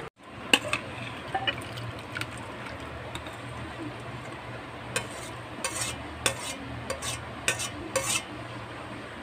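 Metal ladle scooping stewed chicken liver and gizzard adobo out of a stainless steel pot and tipping it into a glass dish: irregular clinks and scrapes against the pot and dish, busiest in the second half, over a low steady hum.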